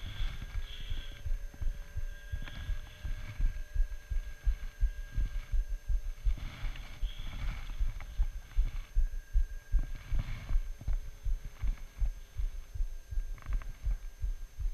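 Dense, irregular low thumping and rumbling as a sled runs over groomed, ridged snow, the jolts carried into a camera mounted on the sled.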